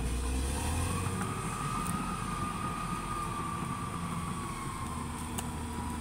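Caterpillar D6R XL crawler bulldozer's diesel engine running under way, a steady low rumble with a high whine that rises about a second in and then slowly falls away.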